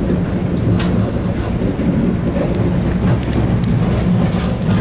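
MBTA Red Line subway car heard from inside the car as it pulls into the station: a steady low rumble with scattered light clicks and knocks.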